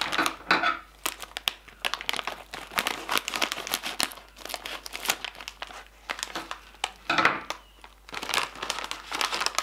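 Metallized plastic Takis chip bag crinkling and crackling irregularly as it is handled and opened.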